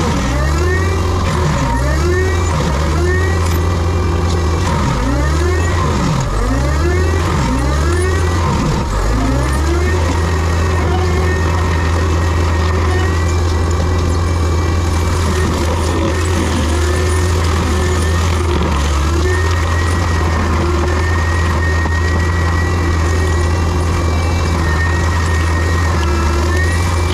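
Heavy diesel land-clearing machine running. Its pitch swings up and down repeatedly over the first ten seconds or so, then holds steady for the rest.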